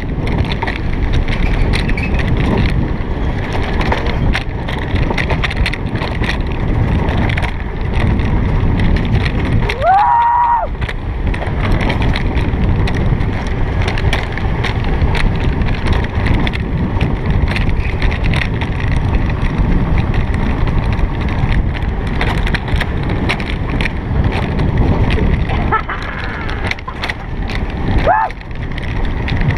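Alpine coaster sled running fast down its steel tube track: a loud, steady rumble and rattle of the wheels on the rails, mixed with wind on the microphone. A brief rising squeal cuts through about ten seconds in and twice more near the end.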